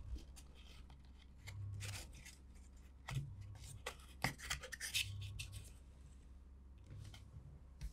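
A flower-shaped desk calendar being changed by hand: its piece is pulled off a small stand and another fitted on, giving soft rubbing and scraping with a run of light clicks, busiest in the middle few seconds. A faint low hum lies underneath.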